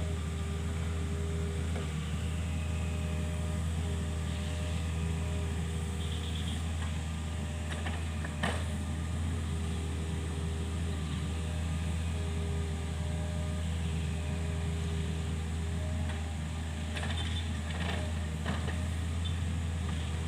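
Kobelco SK 50 P mini excavator's diesel engine running steadily, with a higher tone that comes and goes as the hydraulics work. A sharp knock comes about eight seconds in, and a few more knocks come near the end.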